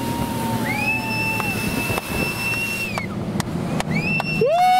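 Several long horn blasts at different pitches over the low running of a motorboat engine. A higher blast sounds from about half a second to three seconds in, a shorter one near four seconds, and a loud, lower blast starts just before the end.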